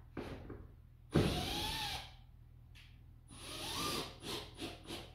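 Handheld power tool run in short trigger bursts: a loud burst about a second in with the motor pitch rising and falling, a second burst near the middle, then a string of quick short bursts, roughly three a second.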